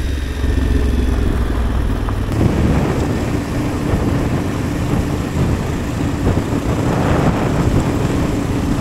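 Adventure motorcycle engine running while riding, a loud steady drone with a low hum. The sound changes abruptly about two seconds in.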